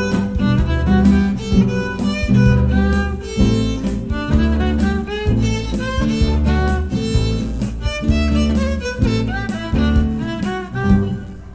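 Upbeat instrumental music: a melody over sustained bass notes and a steady beat.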